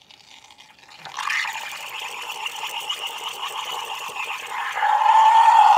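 Home espresso machine's steam wand hissing into a pitcher of milk, starting about a second in, heating the milk with little foam. Near the end a loud steady squeal joins the hiss.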